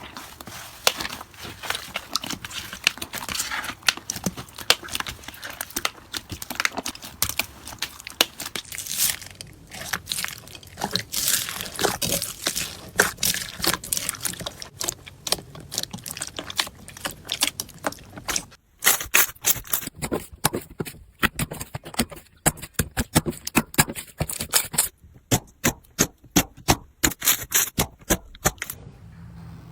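Slime being squeezed and poked by hand, a dense run of sticky clicks and crackles that breaks off briefly twice.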